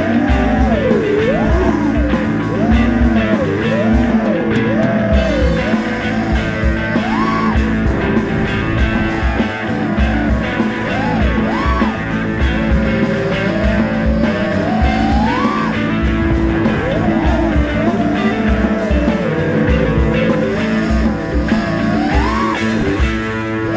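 Rock music with a wavering, bending lead melody over sustained chords and a steady low beat.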